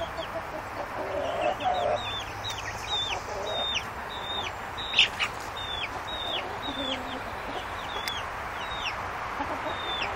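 Young chickens peeping: a steady run of high, short peeps that slide downward, about two a second. A sharp click about five seconds in.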